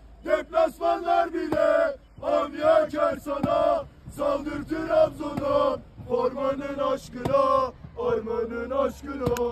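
A small group of Trabzonspor supporters chanting a football song together in rhythmic shouted phrases with short breaks between them. Near the end a steady held tone comes in.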